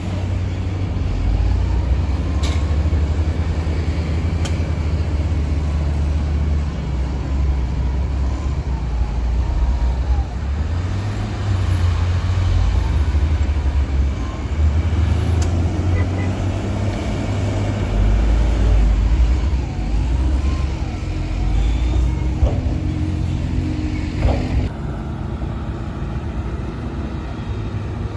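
Heavy diesel earthmoving machinery running with a steady low rumble, broken by short rising-and-falling squeals and a few clicks. It turns a little quieter about 25 seconds in.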